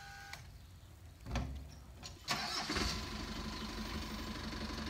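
A few clicks and a thump at the food truck, then about two seconds in the truck's motor starts and runs steadily, a low hum with a thin steady whine above it.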